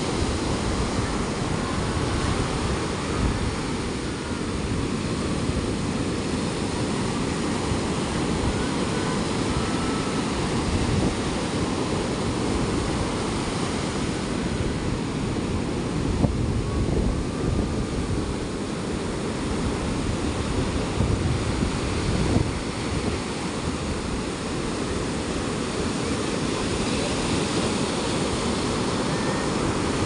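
Ocean waves breaking and washing up a sand beach: a steady rush of surf that swells a little as individual waves come in.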